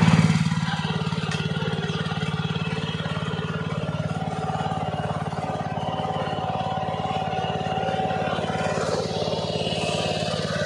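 Gasoline engine of a South Korean ASIA walk-behind hand tractor running steadily while the tractor moves slowly forward; its sound drops a little just after the start, then holds even.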